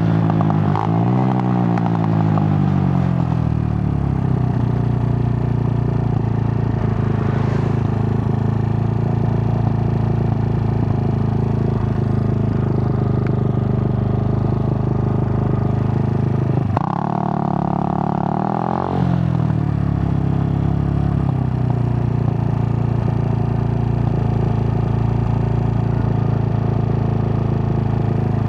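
Suzuki GN125's single-cylinder four-stroke engine running on the move. Its note falls over the first few seconds, then holds steady. About 17 seconds in the note changes abruptly for about two seconds before settling again.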